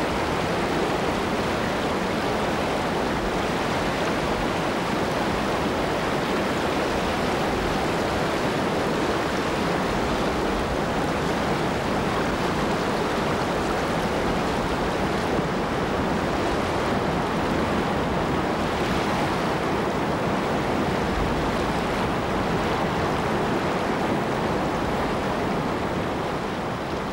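Whitewater rapids on a large river: a steady, even rush of water pouring through big waves and over rocks, easing off slightly near the end.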